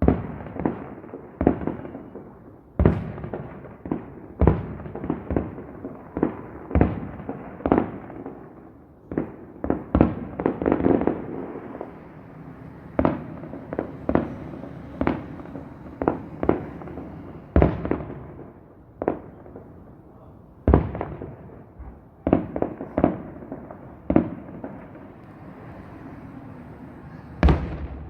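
Aerial fireworks shells bursting overhead in a long, irregular series of sharp bangs, each trailed by an echo. Sometimes several come in quick succession, with a dense flurry of bursts partway through.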